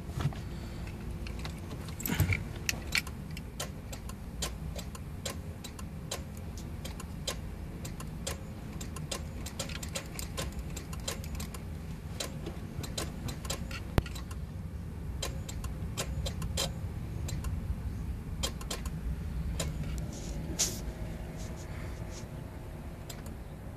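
Irregular clicks and jangling of car keys as the ignition of a 1993 Acura Integra is worked, with no engine cranking or running: the car does not turn over.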